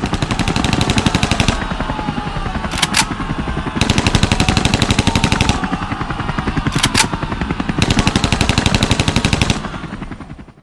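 Sound effect of rapid automatic gunfire, rattling on in long bursts that swell and ease, with two single sharper cracks, about three and seven seconds in.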